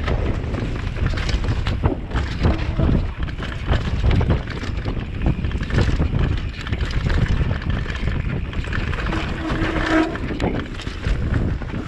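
Commencal V4.2 downhill mountain bike rattling and clattering over a rough, rocky trail at speed, with wind rushing over the microphone. A brief squeal sounds about nine seconds in.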